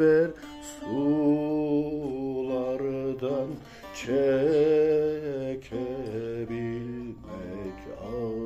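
A man singing long, drawn-out held notes, wavering and ornamented, in Turkish folk style, accompanied by a plucked bağlama (long-necked saz).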